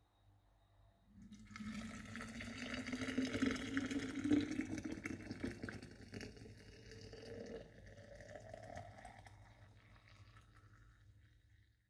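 Water being poured into a glass carafe, the pitch of the filling rising as the carafe fills, then the pour tapering off near the end.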